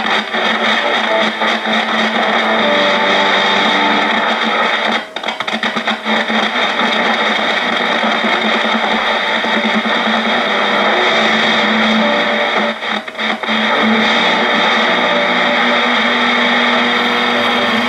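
Sony TR-6080 transistor radio's speaker giving loud hiss and static with a few steady tones running through it, breaking into crackling dropouts about five seconds in and again around thirteen seconds as the control is worked. The crackle comes from a dirty volume control that has just been sprayed with contact cleaner.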